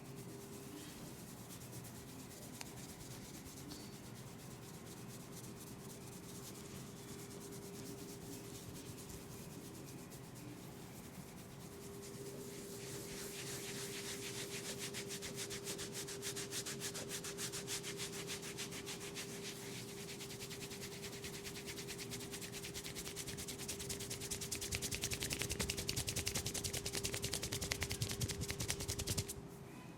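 Hands rubbing quickly and repeatedly over hair and scalp during a head massage, starting about twelve seconds in, growing louder, and stopping suddenly near the end. A steady low hum runs underneath.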